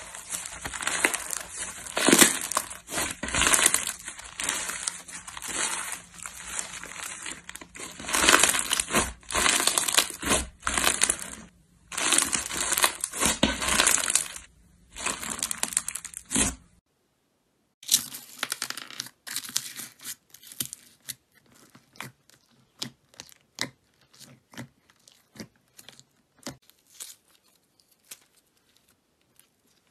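Slime being squeezed and worked by hand, a dense run of crackling pops and clicks. About 17 seconds in it breaks off, then comes back as sparser, quieter pops that thin out.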